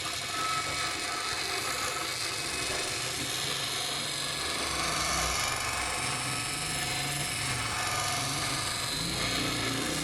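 Electric grinder running steadily, a motor whine with a grinding hiss over it.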